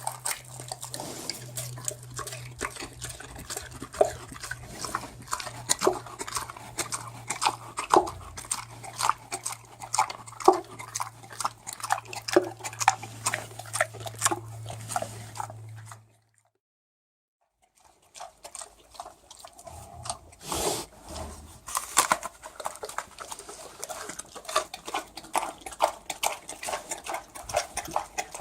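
Pig eating: rapid, irregular wet chewing and smacking. A low steady hum lies under the first part. The sound cuts out for about a second and a half a little past halfway, then the chewing resumes.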